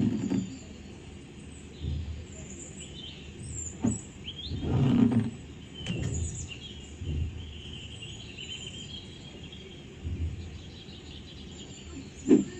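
Small birds chirping and twittering in the background, with scattered low rumbles and thumps, the loudest one about five seconds in and a sharp one near the end.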